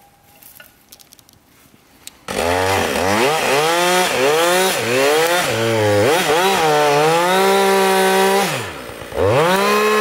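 Two-stroke chainsaw starting up loud about two seconds in, revved up and down several times as it cuts into a felled tree trunk, then held at a steady high pitch. Near the end the engine drops off briefly and revs back up.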